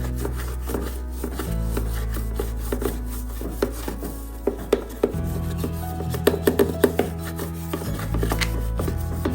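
Irregular rubbing and scrubbing with small knocks and scrapes, from hand cleaning, over soft background music with a steady bass line.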